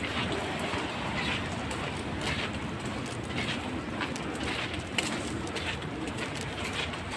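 Steady hiss of rain on a wet street, with footsteps scuffing and splashing on the wet pavement about once a second.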